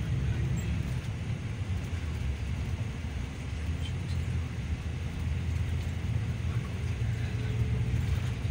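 Yutong bus's engine and road noise heard inside the moving cabin: a steady low rumble that eases slightly a few seconds in and then builds again.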